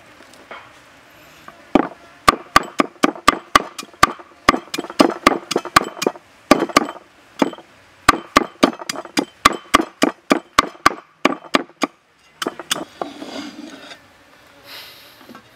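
Steel cleaver chopping garlic and chili on a round wooden chopping block: a quick run of sharp knocks, about three a second, that starts a couple of seconds in and thins out before the end. Near the end the blade scrapes the chopped pieces across the block.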